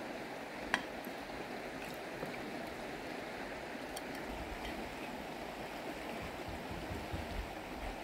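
River water flowing steadily over a stony bed, with one sharp clink of a spoon against a plate a little under a second in.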